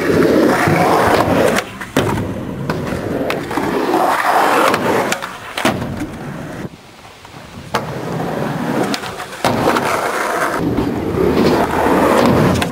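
Skateboard wheels rolling loudly over the hard ramps of a skatepark, with several sharp clacks of the board hitting the ground from pops and landings. The rolling briefly quietens about seven seconds in.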